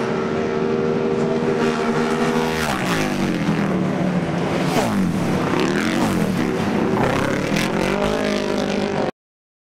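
Flat-track racing motorcycle engines. One engine holds a steady high note for the first two and a half seconds; then several engines fall and rise in pitch, overlapping, as the bikes go by and back off and get back on the throttle through the turn. The sound stops abruptly near the end.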